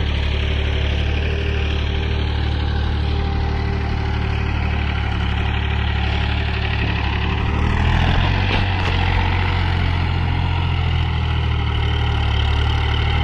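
Tractor diesel engine running steadily, its pitch shifting slightly about eight seconds in.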